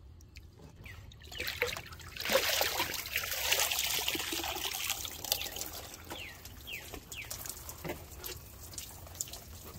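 Water splashing and streaming off a person climbing out of a pool up its ladder, loudest from about two to five seconds in, then easing into trickles and drips.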